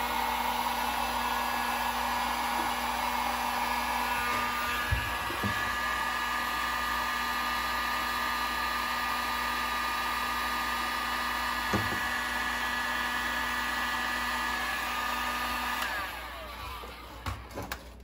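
Electric heat gun running steadily, its fan blowing hot air onto an old rubber bilge hose to soften it. A few light knocks come through it, and it cuts off about two seconds before the end.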